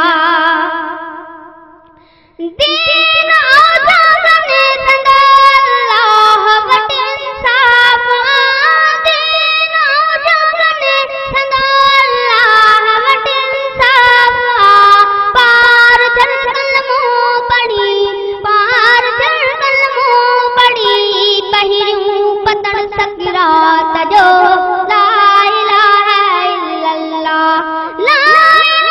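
A boy singing a Sindhi hamd, a devotional song in praise of God. A held note fades away at the start, and after a short pause about two and a half seconds in, the voice comes back with long, ornamented notes that slide between pitches.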